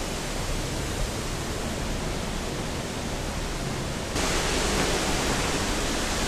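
Steady rushing of water from a small hydroelectric plant, a constant hiss that gets a little louder and brighter about four seconds in.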